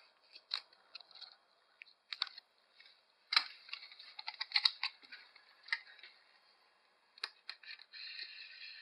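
Camcorder handling noise as the camera zooms out: scattered clicks and taps, with a short steady whir about 8 seconds in.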